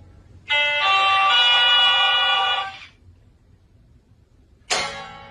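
Electric guitar tones and a talking hamster toy that mimics them. About half a second in comes a loud, buzzy, held chord lasting about two seconds. Near the end a single chord is struck and rings out.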